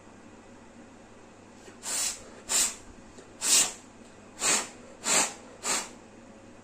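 Six short hissing puffs of blown air, a second or less apart, starting about two seconds in.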